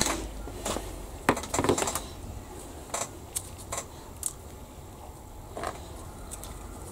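Small hard clicks and clatter of plastic model-kit parts and hobby tools being handled and set down on a workbench: a cluster of clicks in the first two seconds, then scattered single taps.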